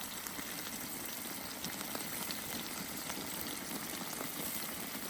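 Cured pork stir-fry sizzling and bubbling steadily in a hot wok, with fine crackles throughout.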